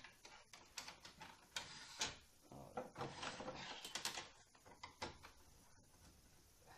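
Scattered light clicks, taps and rustles of hands unplugging the LVDS ribbon cable inside an opened LCD TV and moving its wiring about. The handling thins out about five seconds in.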